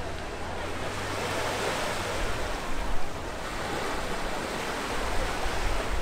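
Ocean surf washing onto the beach: a steady rush of waves that swells around the middle and eases again.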